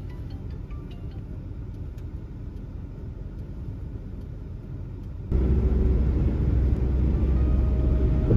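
Steady low rumble of a moving camper's engine and tyres. About five seconds in it jumps suddenly to a much louder, heavier road rumble, as at highway speed.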